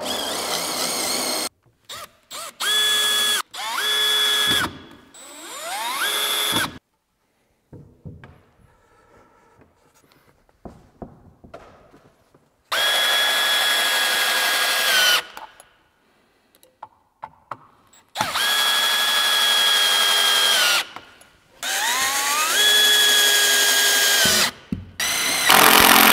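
Cordless drill running in about eight bursts of a few seconds each. It spins up to a steady whine, then winds down, as it bores pocket holes through a Kreg Jig into heavy timber stair treads.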